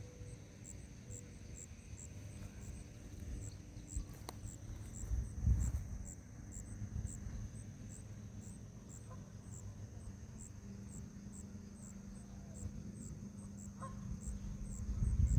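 Insects chirping in a steady rhythm, a high pulse about two to three times a second over a constant high hum, with a low rumble underneath that swells briefly about five seconds in.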